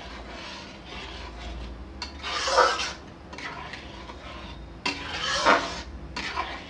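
Flat metal spatula stirring and scraping around a metal kadhai of boiling milk and vermicelli, with two louder scrapes, about two seconds in and about five seconds in.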